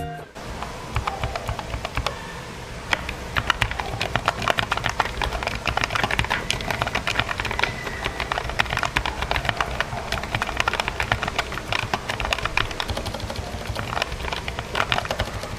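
Typing sound test on a Redragon Azure 75 mechanical keyboard: a fast, irregular stream of key clicks and clacks.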